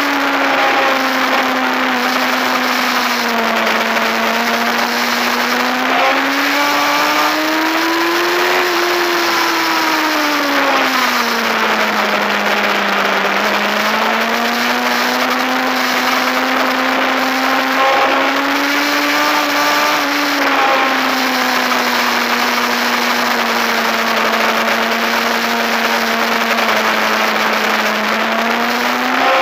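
A racing motorcycle's engine running hard at speed, heard from onboard with wind rushing over the microphone. Its pitch falls and rises slowly several times over a few seconds each, with a small drop about two-thirds of the way through.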